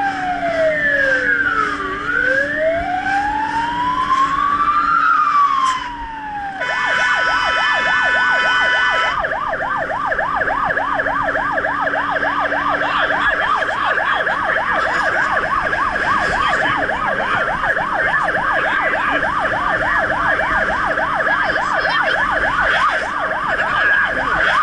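A fire truck's siren, heard from inside the cab while the truck is under way on an emergency response. It starts on a slow wail rising and falling about every two seconds. About six seconds in it gives a steady blaring tone for a couple of seconds, then switches to a fast yelp of several rapid sweeps a second.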